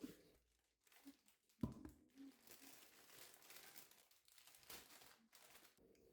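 Quiet crinkling and rustling, like paper or plastic packaging being handled, with a single knock about a second and a half in.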